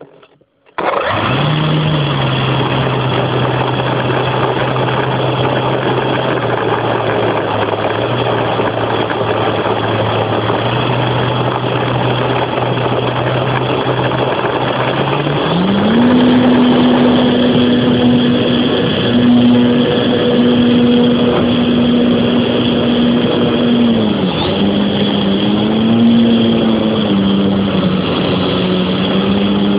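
Electric motor and propeller of a Tiger Stick RC model plane, heard up close from its nose, with a steady hum over a rushing noise. The motor starts about a second in. About halfway through its pitch steps up as the plane speeds up for takeoff, and near the end the pitch wavers as it flies.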